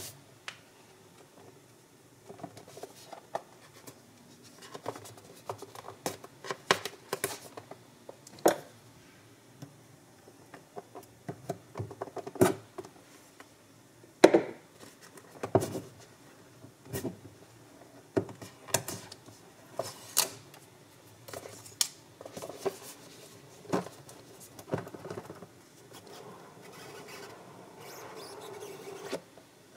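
Fingers handling and turning a cardboard product box: scattered taps, scrapes and rubs on the cardboard, with a longer stretch of rubbing near the end.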